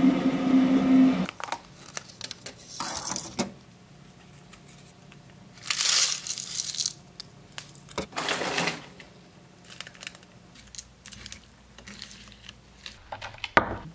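Electric toothbrush buzzing, cutting off about a second in. Then plastic crinkling in a few short bursts as a lidded plastic cup is handled, and light clicks and taps of a spoon stirring yogurt, blueberries and granola in the cup.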